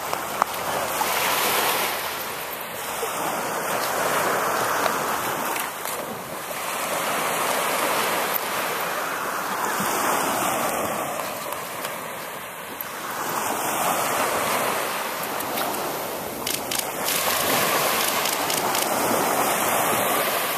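Small surf breaking on a sandy shore, the rush of each wave swelling and fading every three to four seconds.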